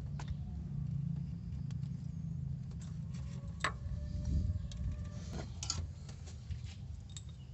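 Chain-type oil filter wrench being worked on a newly fitted oil filter and taken off it. Its metal chain links clink a few times, once about halfway through and again near the end, over a steady low hum.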